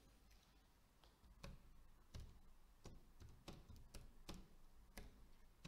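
Faint typing on a computer keyboard: about a dozen irregularly spaced key clicks, starting about a second and a half in.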